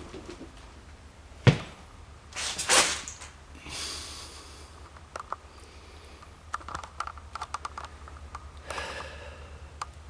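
A person moving about and breathing hard: a sharp knock about a second and a half in, then a few loud breaths, with scattered small knocks and clicks from footsteps and handling in between.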